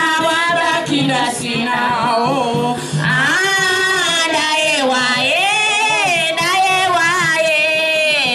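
A voice sings long, wavering held notes over music.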